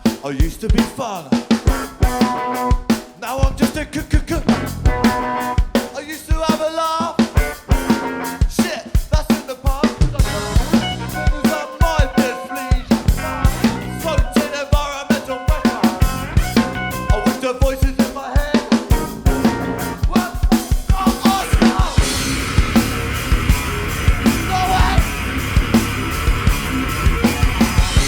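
Live punk rock band playing an instrumental passage: drum kit with kick and snare under bass and guitar lines. About three-quarters of the way through the sound thickens into a denser, brighter full-band wash.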